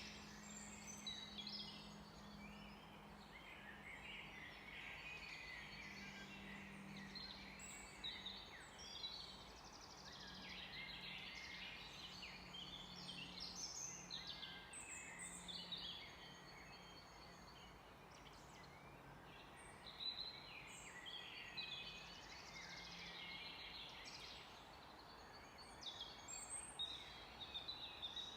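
Several songbirds singing at once, a dense chorus of quick overlapping chirps and trills, over a faint low hum that fades out near the end.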